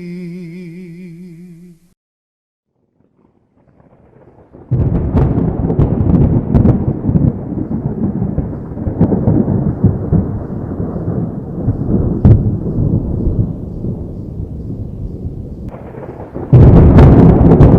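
A song fades out, and after a short silence a thunderstorm sets in about five seconds in: heavy, continuous thunder rumbling with scattered sharp cracks. The thunder swells louder near the end.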